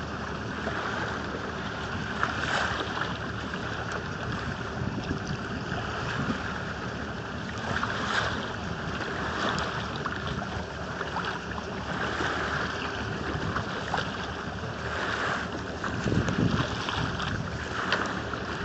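Sea water lapping and splashing against the hull of a small motorboat, with wind buffeting the microphone; a few louder splashes come and go.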